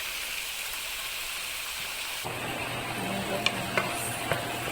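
Onion, garlic, tomato and red bell pepper sizzling in hot olive oil in a pot, a steady hiss. About two seconds in, the sizzle suddenly drops away, and a steady low hum with a few sharp clicks takes over.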